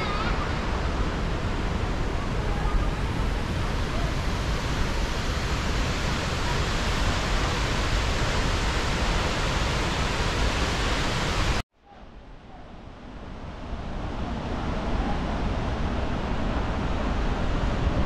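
Waterfall's rushing water, a steady dense roar. It cuts out abruptly about two-thirds of the way through, then comes back quieter and swells again.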